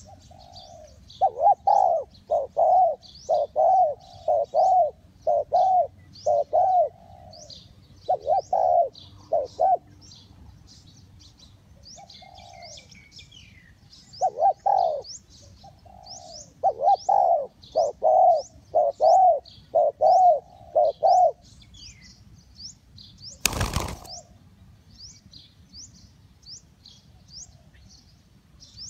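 Spotted dove cooing: groups of rapid, repeated low coo notes with pauses between them. Small birds chirp faintly and continuously in the background. A single short knock sounds about three-quarters of the way through.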